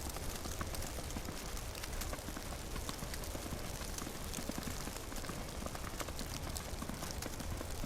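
Footsteps crunching through fresh snow, under a steady hiss with many small irregular ticks of falling snow.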